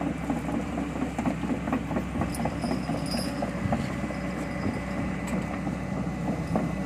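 Heavy diesel engine of the dump truck or excavator running steadily.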